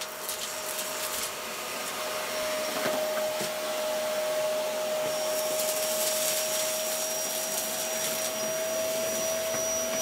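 An 1800 W Contempo G020-18 bagless cyclonic canister vacuum running: a steady motor whine over rushing air, with a few light clicks in the first seconds. A faint high whistle joins about halfway through.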